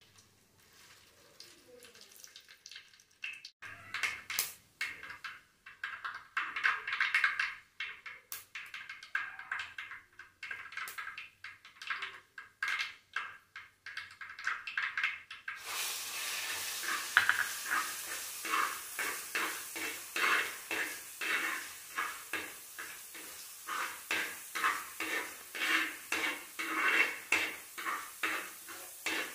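Mustard seeds popping and crackling in hot oil in a clay pot. About halfway through a steady sizzle starts as chopped garlic goes into the oil, and a steel spoon scrapes the earthenware pot while stirring, about two strokes a second.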